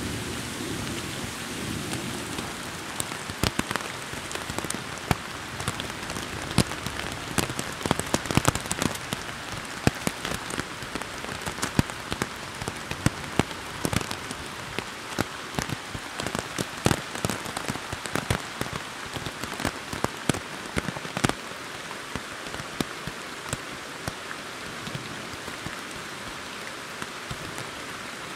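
Steady rain falling on forest foliage and rock, with many close, sharp drop hits that crowd together through the middle and thin out near the end. A low rumble of thunder fades away in the first two seconds.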